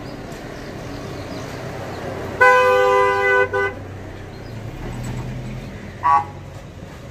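Vehicle horn honking: a single long blast of over a second with a brief break near its end, then a short toot about three seconds later. A vehicle engine hums steadily underneath.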